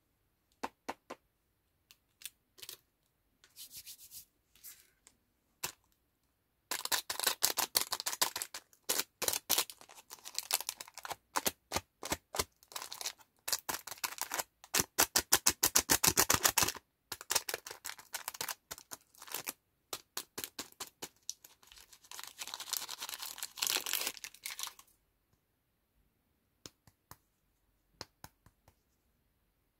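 Plastic lollipop wrapper crinkling and crackling as fingers work it open: a few scattered crackles, then long dense runs of sharp crinkling through the middle, dying away near the end.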